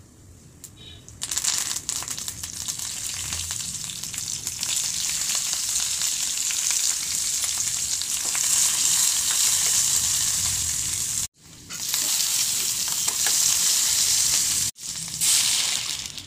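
Chopped onion and capsicum sizzling and crackling in hot oil in a kadhai on a gas stove, a loud steady frying hiss that starts about a second in. The hiss breaks off abruptly twice for a moment.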